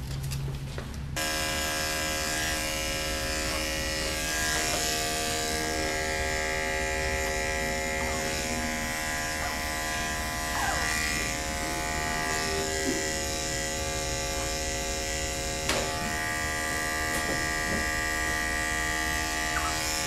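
Andis electric dog-grooming clipper switching on about a second in, then buzzing steadily as it shaves a Yorkie puppy's coat.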